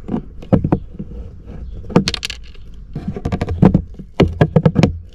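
Plastic push clips on a Smart Fortwo dashboard trim panel being prised out with a flat metal tool: a string of sharp clicks and knocks, bunched around two seconds in and coming thick and fast near the end.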